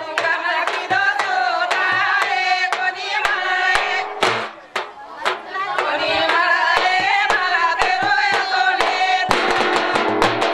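A group of women singing a traditional Banjara wedding song together, with sharp rhythmic handclaps keeping the beat. About a second before the end, the singing gives way to fast drumming.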